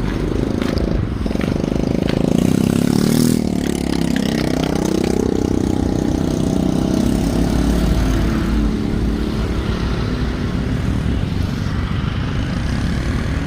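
A motor engine running steadily, its pitch dipping and then rising again about four seconds in.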